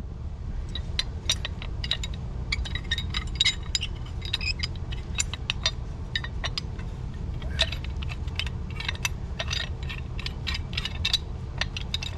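Pipe wrenches working on threaded steel and brass fittings: many quick, irregular metallic clicks, clinks and scrapes, over a steady low hum.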